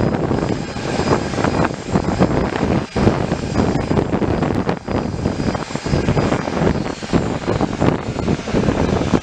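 Loud, steady aircraft engine noise from a fixed-wing plane.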